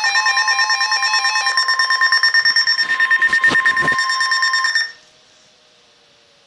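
Electronic emergency alert tone: loud, steady high-pitched tones with a rapid pulsing beep of about ten a second, cutting off suddenly about five seconds in, leaving only a faint hum.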